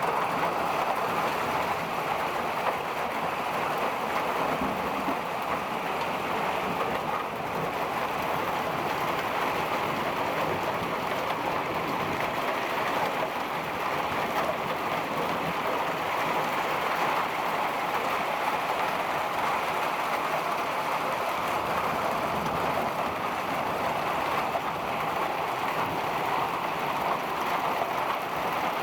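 Hail and heavy rain falling in a thunderstorm, a dense, even patter that holds steady throughout.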